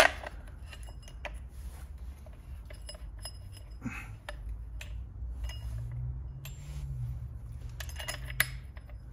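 Light metallic clinks and clicks of a scooter's variomatic drive parts (the finned variator fan pulley and its washer) being fitted by hand onto the crankshaft. There is a sharp click at the start and a quick cluster of clinks near the end.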